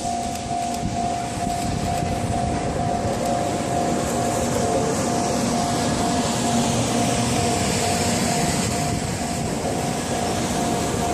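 A Shinkansen train running by with steady rumbling and hiss. Over it, a level-crossing warning bell rings in an even, repeating pulse throughout.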